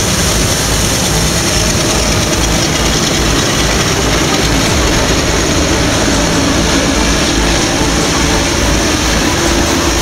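Claas Lexion combine harvesters running while cutting rapeseed: a steady mix of engine rumble and threshing machinery noise with a strong high hiss.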